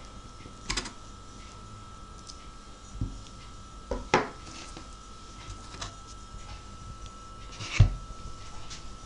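A knife cutting through a block of firm homemade cheese and knocking on a wooden cutting board, with a few separate knocks as the cheese pieces are set down and moved on the board. The loudest knock comes near the end. A faint steady high whine runs underneath.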